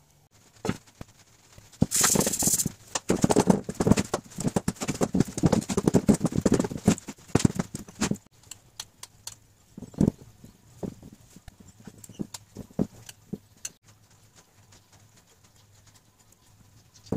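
Frying pan and kitchen utensils handled on a wooden tabletop: a dense run of quick knocks and taps starting about two seconds in, thinning to scattered taps after about eight seconds.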